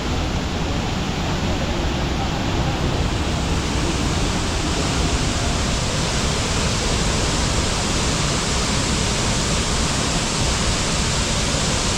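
Tibumana Falls, a waterfall, pouring steadily: a constant loud rush of falling water, its hiss growing a little fuller about three seconds in.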